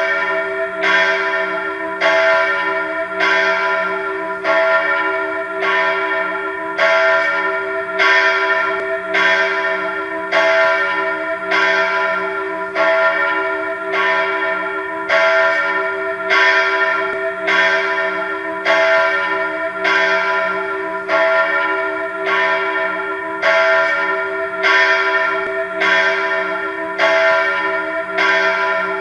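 Church bells pealing in a steady, even rhythm, about four strokes every three seconds, each stroke ringing on beneath the next. The ringing starts abruptly.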